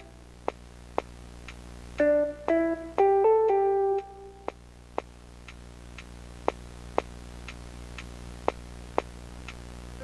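Background music: a short phrase of plucked-string notes about two seconds in, over a steady tick about twice a second that runs on alone after the phrase ends.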